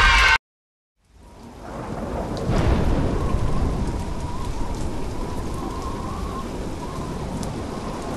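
Thunderstorm ambience: steady heavy rain with a low rumble of thunder. It fades in about a second in, after a short loud sound cuts off, and is loudest two to three seconds in.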